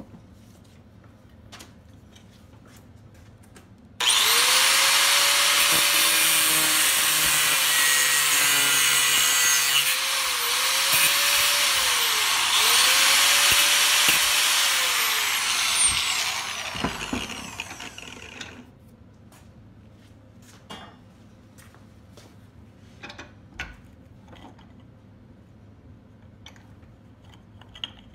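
Angle grinder with a thin cut-off wheel cutting a bolt clamped in a bench vise. It starts suddenly about four seconds in, its motor pitch dips several times as the wheel bites, and it winds down about twelve seconds later. Scattered small clicks and taps of handling follow.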